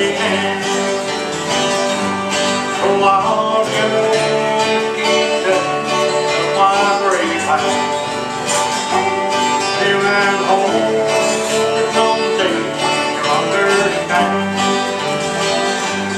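Bluegrass band playing an instrumental break between verses: acoustic guitars strumming and a five-string banjo picking, with some notes sliding in pitch.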